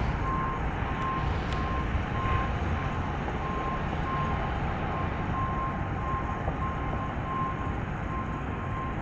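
US&S mechanical railroad crossing bell ringing, its evenly spaced strokes giving a clear single tone over a steady low rumble. The bell is in healthy working order.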